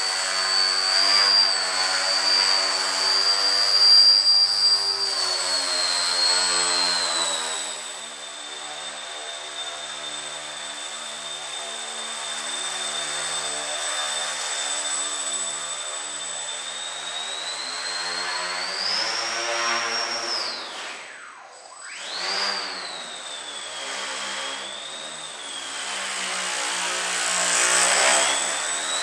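Breeze Pro FP3 indoor foamie's electric motor and propeller whining, the pitch rising and falling with the throttle as the plane hovers and manoeuvres. About two-thirds through, the whine drops away almost to nothing, then comes back up a second later.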